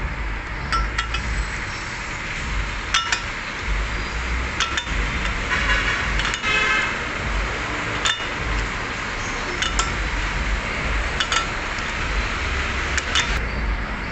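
Steel socket and wrench clinking against a bolt as they are fitted and turned, with sharp metallic clicks, mostly in pairs, every second or two, and a quick run of clicking around the middle. A steady workshop hum sits beneath.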